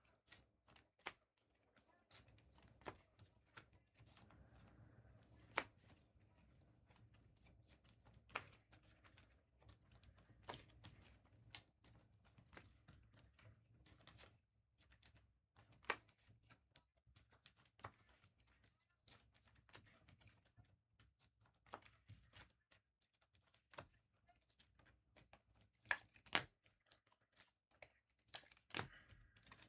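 Near silence broken by faint, irregular clicks and taps of small objects being handled, a few sharper ones near the end.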